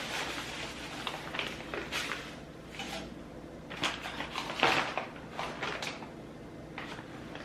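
Granulated sugar being scooped with a measuring cup and poured into a stand mixer bowl: a grainy hiss with a few knocks and scrapes of the cup.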